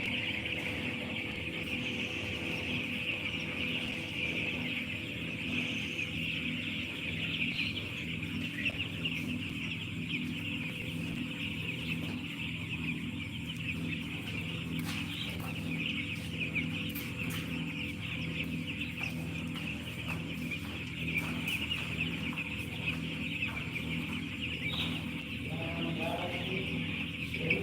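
A flock of broiler chicks peeping continuously in a dense, steady chorus, over a steady low mechanical hum.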